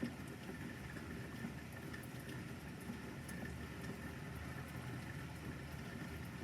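Light rain pattering in small scattered ticks over a steady low rumble, with a faint steady high tone underneath; no thunder clap.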